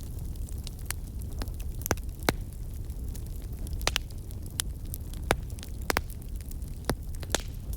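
Campfire burning: irregular sharp crackles and pops of burning wood, about a dozen, over a steady low rumble.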